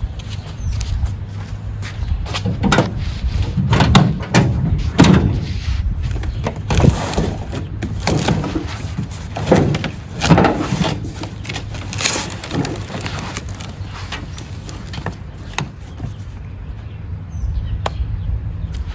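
Repeated knocks, thumps and scraping sounds over a steady low rumble, busiest through the first two thirds and thinning out near the end.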